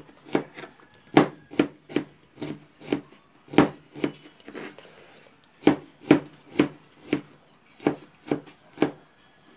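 Kitchen knife slicing onion on a plastic cutting board: a run of sharp knocks, about two to three a second, each one the blade coming down through the onion onto the board. The knocks pause for about a second and a half midway, then resume.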